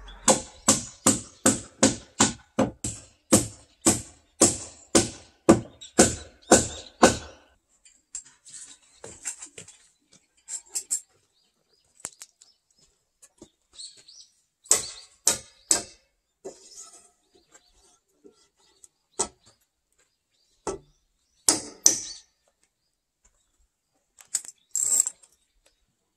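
A hammer driving nails into timber roof rafters: about sixteen steady blows, roughly two a second, for the first seven seconds. Then scattered knocks and clatter of tools and wood, with three quick strikes about halfway through.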